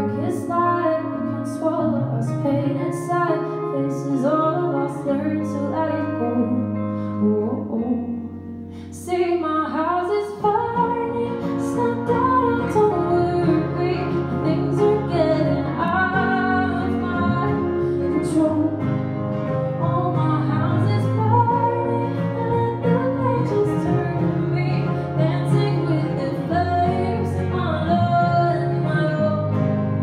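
Live acoustic pop song: a woman singing over strummed acoustic guitar and electric guitar. The music drops back briefly about eight seconds in, then comes in fuller and louder.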